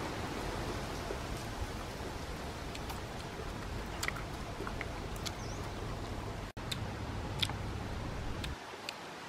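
Steady outdoor hiss with scattered light clicks and taps as someone eats from a coconut-shell bowl with a wooden spoon. A brief gap in the sound comes about six and a half seconds in.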